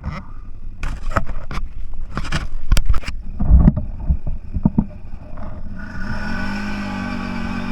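An off-road vehicle jolting over rough ground, with irregular knocks and thumps that are loudest around the middle. About six seconds in, the engine picks up and settles into a steady running note.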